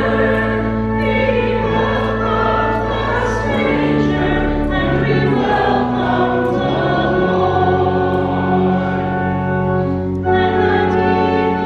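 A choir singing a hymn over sustained low accompanying notes; the bass notes change about four and seven seconds in.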